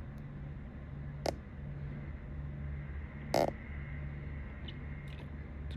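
A steady low hum that pulses regularly, under two short knocks, one about a second in and a louder one about three and a half seconds in.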